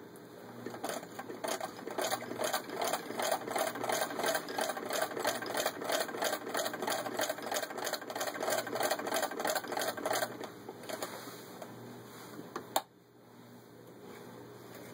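Antique Minnesota Model K sewing machine turned by hand at the handwheel, stitching through six layers of denim: a rapid, even clatter of needle and feed strokes that slows and stops about two-thirds of the way through. One sharp click follows near the end.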